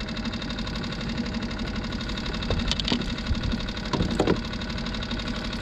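Small boat outboard motor idling steadily, with a couple of short clicks and clatters over it about three and four seconds in.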